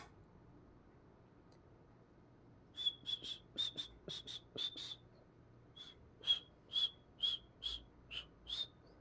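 Cockatiel chirping in short, high whistled notes: a quick run of chirps, a pause of about a second, then another run of about seven evenly spaced chirps.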